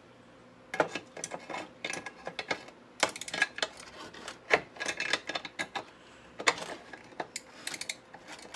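Metal hand tools clinking and rattling as a pair of pliers is picked out of the tool clutter and fitted against a bolt on a steel drum-brake backing plate: an irregular run of sharp clinks and scrapes beginning about a second in.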